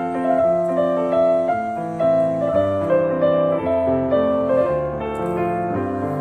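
Background piano music: a melody of held notes over changing chords.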